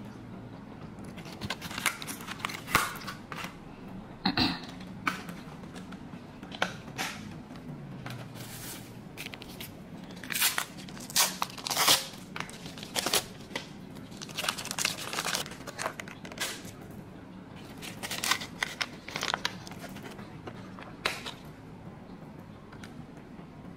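Crinkling and tearing: a run of short, irregular rustles and rips, loudest around the middle.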